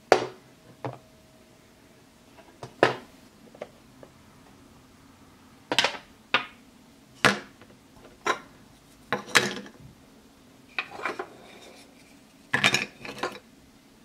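Plastic toy vegetable pieces being dropped into a plastic toy pot, giving a series of sharp, irregularly spaced plastic knocks and clatters.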